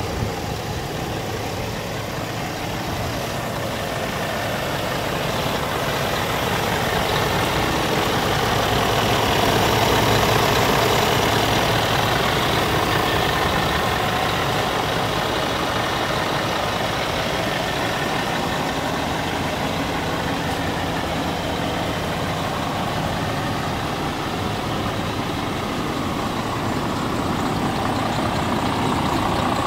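Scania R440 tractor unit's inline-six diesel engine idling steadily, its loudness swelling slightly twice.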